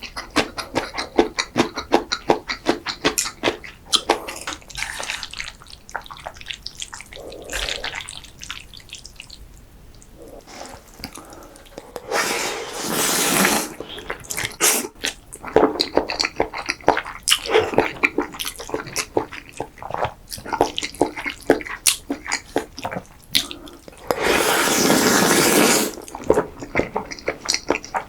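Close-miked wet eating sounds of creamy pasta and risotto: rapid moist chewing and smacking clicks, with two loud slurps of about two seconds each, one about twelve seconds in and one near the end.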